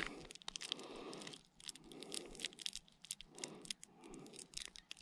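Small plastic tackle packet crinkling and rustling in the fingers as a little bag of beads is worked out of it, with irregular small clicks.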